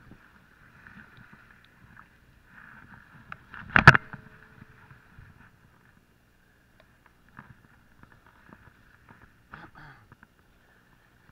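Muffled handling noise from working a spinning rod and reel: faint rubbing and small clicks, with one sharp, loud knock about four seconds in and a short rattle near the end.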